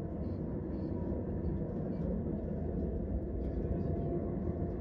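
High-speed train running at speed, heard from inside the carriage: a steady low rumble of track and running noise.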